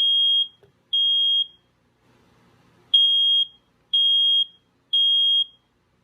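Smoke alarm sounding the temporal-3 pattern, high piercing beeps about half a second each. Two beeps finish one group, then after a short pause a full group of three follows.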